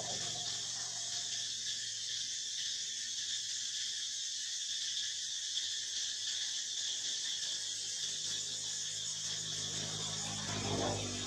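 A steady, continuous chorus of insects with a high-pitched buzzing that holds at an even level, and a brief lower sound near the end.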